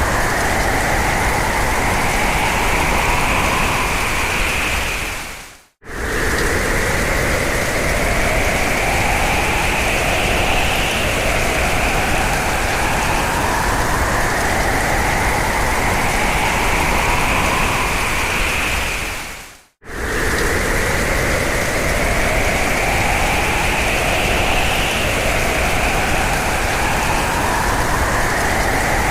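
Hurricane wind, a loud steady rush with howling tones that slowly rise in pitch. It drops out abruptly twice, about six seconds in and again about twenty seconds in, and the same rising howl starts over each time.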